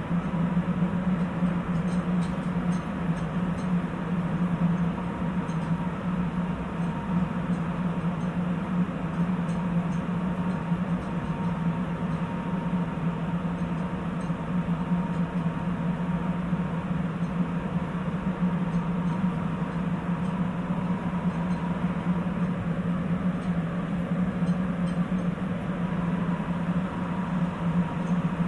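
Sapporo subway 8000-series rubber-tyred train running steadily, heard from inside the car: an even rumble of tyres and running gear with a low hum and a faint high whine.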